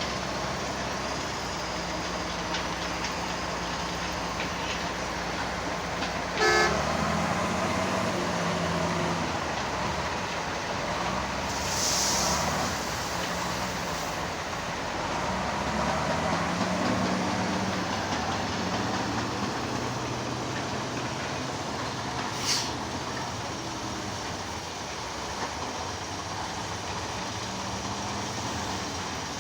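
Heavy diesel engines of earth-moving machinery running and revving up and down, with a short, loud horn toot about six seconds in, a brief hiss around twelve seconds, and a sharp click later on.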